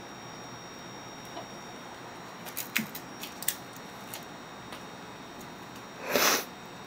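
A cat playing with a feather wand toy on a carpeted cat tree: a few light clicks and taps as it bats at the toy, then a louder rustle lasting about half a second near the end as it pins the toy in its paws and bites it.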